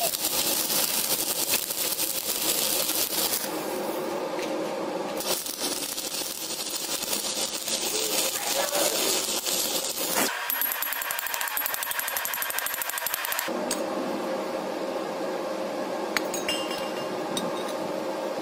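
Stick (arc) welding with a 2.6 mm electrode: the arc crackles and sizzles steadily, its crackle changing abruptly several times as the weld runs stop and start.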